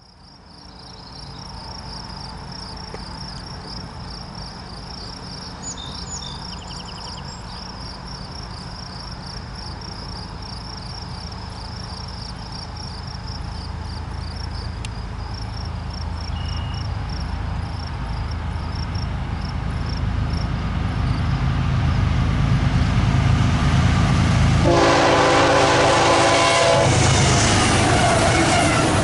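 Approaching diesel freight locomotive, its low rumble growing steadily louder. Near the end, the lead CSX ES40DC's Nathan K5HLL five-chime horn sounds two long blasts of several chime tones together.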